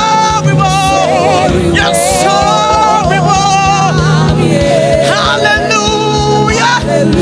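Gospel worship music: voices singing with vibrato over a band with a steady drum beat.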